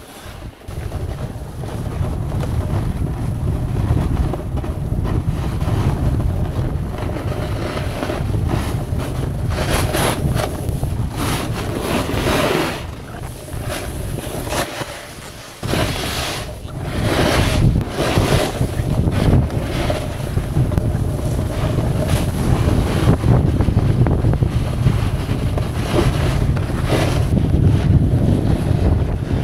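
Wind buffeting the microphone during a fast run down a ski slope, with the hiss and scrape of sliding on snow surging several times and easing off briefly about halfway through.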